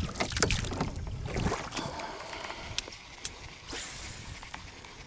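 Knocks and rattles in a small fibreglass boat, then a quieter stretch with a few scattered sharp ticks and light water sounds.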